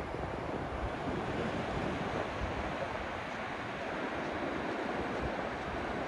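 Atlantic Ocean surf breaking and washing up a flat beach: a steady hiss of waves, with a low rumble of wind on the microphone.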